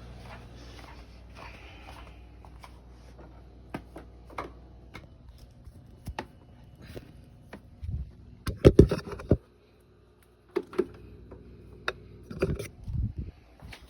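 Scattered clicks and knocks over a low hum, with a cluster of louder thumps about eight to nine seconds in and again near the end: handling noises around a switched-off upright vacuum cleaner.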